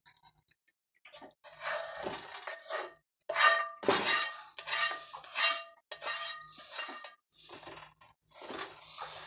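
A plastic slotted spoon scraping thick gravy out of a tilted cast-iron skillet, in a run of short, rasping strokes, the loudest about four seconds in.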